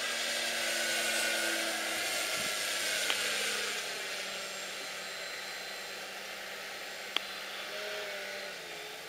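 Electric motor and propeller of a HobbyKing Yak 54 RC aerobatic plane in flight, a steady whine and rush that is loudest in the first few seconds as the plane passes, then eases off a little.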